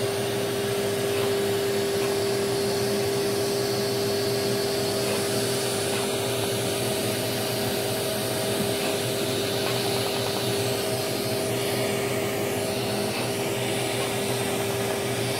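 Er:YAG skin-resurfacing laser system running during treatment: a steady machine hum with a held mid-pitched tone over a hiss.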